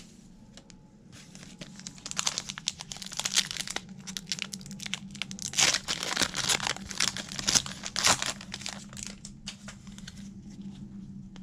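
Foil wrapper of a 2021-22 Bowman University Football card pack being torn open and crinkled by hand, an uneven run of crackles that starts about a second in, is loudest in the middle and thins out near the end.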